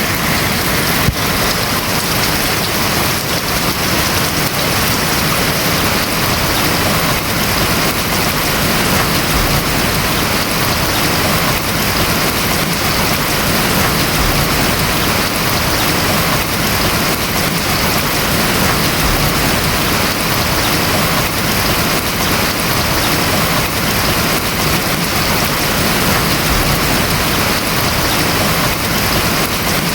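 Steady rain falling on a house roof, an even, unbroken hiss of many drops.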